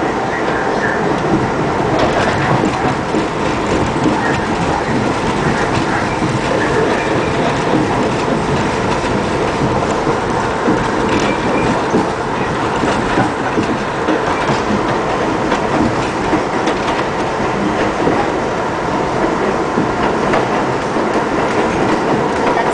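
New York City Subway #7 train running along its track, heard from inside the car: a steady rumble of wheels on rails, broken by scattered clicks over rail joints.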